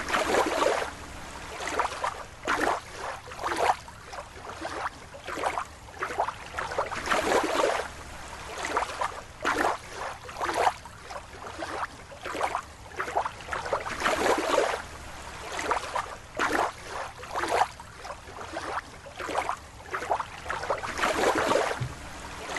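Water splashing and sloshing in short irregular bursts, about one or two a second, as a toy is moved through a bowl of water.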